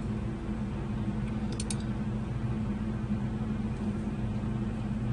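Two quick computer mouse clicks close together about a second and a half in, over a steady low hum.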